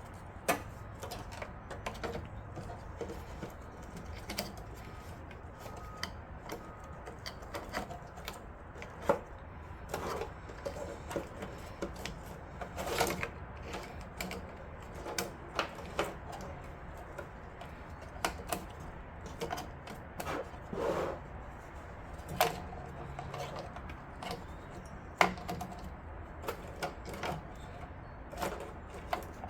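PCIe riser cable and computer case parts being handled and fitted by hand: irregular light clicks and taps of plastic and metal, with a few louder knocks.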